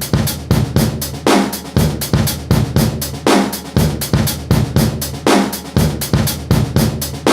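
Drum beat of an electronic dance track: kick drum, snare and hi-hats hitting in a steady, loud dance rhythm.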